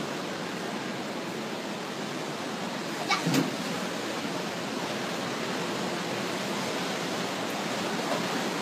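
Steady rushing road and wind noise of a moving vehicle, with a single short knock about three seconds in.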